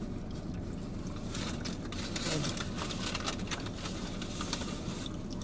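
Aluminium foil sandwich wrapper crinkling and crackling as it is handled, in a quick irregular run of crackles from about a second in until near the end.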